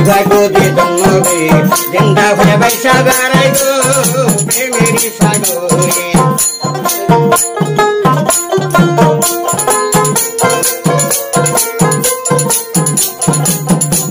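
Bengali baul folk music: a dotara being plucked over a steady percussion beat, as an instrumental interlude between the song's verses.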